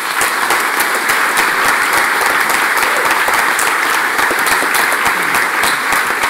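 Audience applause, many people clapping steadily at the end of a talk.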